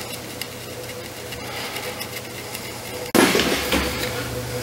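Light clicks and taps of small tools over a steady electrical hum, then, after an abrupt cut about three seconds in, the loud steady hiss of a hot-air rework station blowing, as used for lifting or reflowing the eMMC flash chip.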